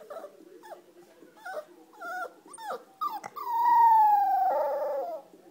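Puppy crying: a string of short whimpers that drop in pitch, then one long whine about three seconds in that slides slowly downward and is the loudest sound.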